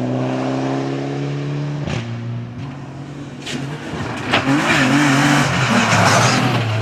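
Rally car engine at high revs, its pitch climbing until a sharp crack at a gear change about two seconds in. The engine note then drops and wavers as the car slides, with tyre and skidding noise swelling in the second half.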